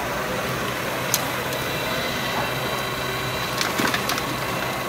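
Gravel tipped from a radio-controlled CAT 993K wheel loader's bucket clattering into the bed of a radio-controlled CAT 797 dump truck, a short burst of rattling stones about three and a half seconds in, over steady hall background noise. A single sharp click about a second in.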